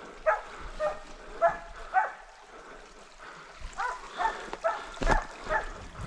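Hunting dogs barking over and over, baying a wild boar they have brought to bay in its bed. There are about ten barks in two bursts with a short lull between them, and a single sharp knock near the end.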